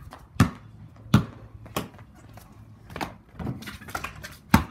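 Basketball dribbled on a stone-tiled patio: sharp bounces about two thirds of a second apart, then lighter knocks as it is shot at a wall-mounted hoop, with the loudest bounce near the end.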